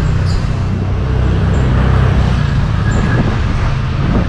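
Road traffic on a city street: a steady, loud engine-and-tyre rumble that swells slightly around the middle.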